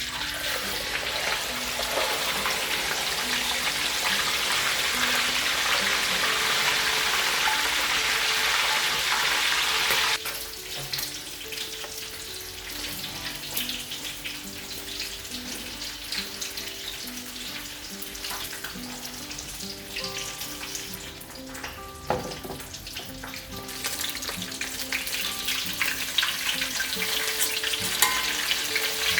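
Fish deep-frying in hot oil: a dense, steady sizzle that drops off suddenly about ten seconds in, followed by lighter crackling and popping. Soft background music plays underneath.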